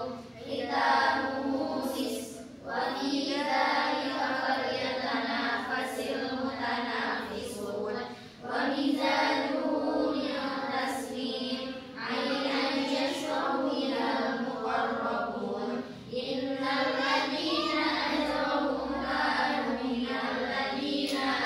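Girls' voices reciting the Quran aloud together, a many-voiced chant broken by short breath pauses every few seconds.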